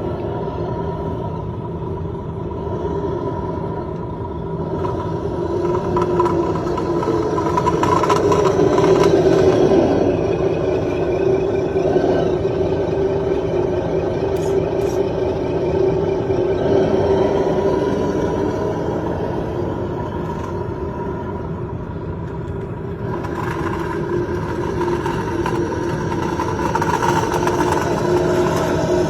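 Scale RC plow truck (CEN Ford F-450) running, its electric drive motor and gears whining steadily, rising and easing with the throttle as it pushes through snow.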